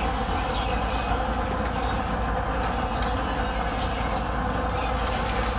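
A steady hum, with faint scattered crackles of tilapia simmering in coconut milk in a pot on a gas stove.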